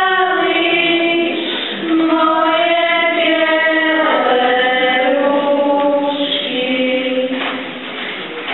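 A girls' choir singing together, with long held notes; the singing grows quieter near the end.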